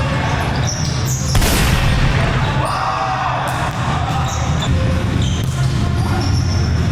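Indoor volleyball being played on a gym court: sneakers squeaking on the floor and the ball being struck. A louder noisy burst comes about a second and a half in.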